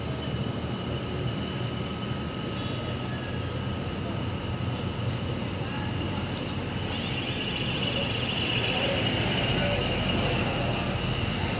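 A high, rapidly pulsing chorus of crickets that grows louder about seven seconds in, over a steady low rumble of construction machinery.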